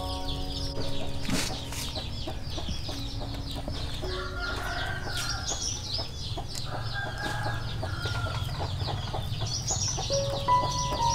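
Chickens in the background: a rapid run of high peeping chirps throughout, with clucking and a few held lower tones.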